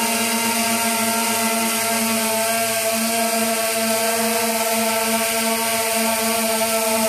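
DJI Phantom v1 quadcopter hovering close overhead, its four motors and propellers giving a steady, even-pitched buzz.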